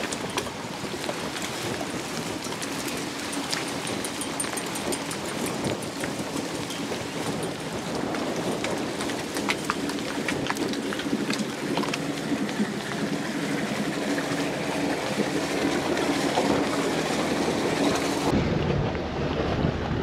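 Beach ambience: small waves washing and crackling on the shore with wind on the microphone, and a steady engine hum through most of it. About 18 s in the sound changes abruptly to a heavy wind rumble on the microphone.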